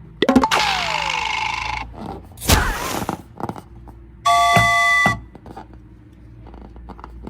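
A string of cartoon sound effects: a falling whistle over a hiss, a sharp whoosh-like hit, then a held electronic chime tone lasting under a second.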